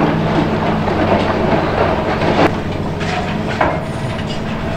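Demolition excavator's diesel engine running steadily, with rough crunching and clanking of concrete and steel as its jaws tear at the building. There are two sharp cracks, about two and a half and three and a half seconds in.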